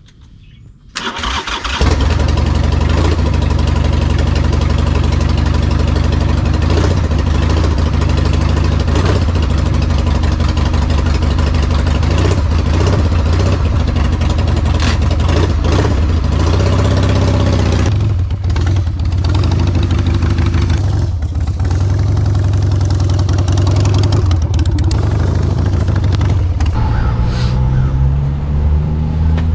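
Harley-Davidson motorcycle's V-twin engine starting about a second in, catching almost at once, then running loud and steady. Its pitch rises near the end as the throttle is opened.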